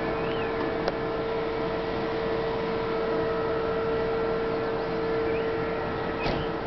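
Steady outdoor city ambience heard from high above the streets: an even rush of noise with a constant mid-pitched hum that fades out near the end. There are a few faint chirps and a single click about a second in.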